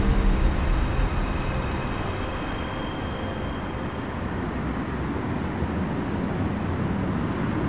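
Steady city traffic ambience: a constant wash of road noise with a low rumble, heaviest in the first second.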